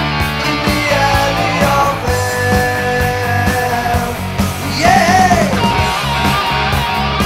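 1980s NWOBHM heavy metal band recording: electric guitars over bass and drums, with one note bending up and falling back about five seconds in.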